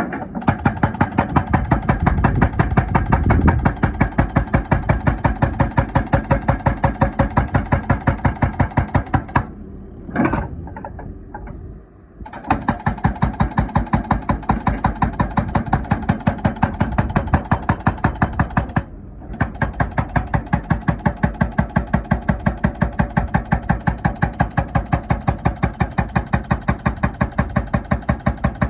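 Excavator hydraulic breaker hammering, with rapid, evenly spaced blows at several a second over the excavator's running engine. The hammering stops about nine seconds in for a few seconds, leaving only the engine, then starts again, with another short pause near the nineteen-second mark.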